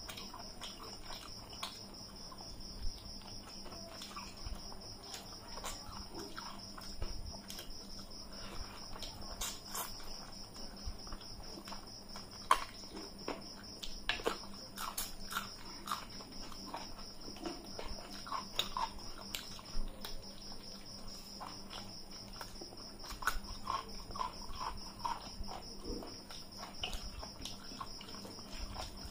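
Eating sounds: fingers mixing rice and curry on metal plates, with chewing and lip smacks as short irregular clicks. A steady high-pitched tone runs underneath.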